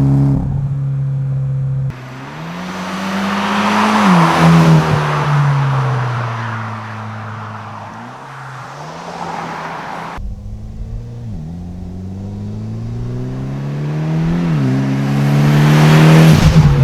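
Mitsubishi Lancer Evolution X's turbocharged 2.0-litre four-cylinder through an HKS Hi Power single-exit exhaust, accelerating hard: the pitch climbs with short dips at each gear change, then falls away. This happens twice, and the car is loudest near the end.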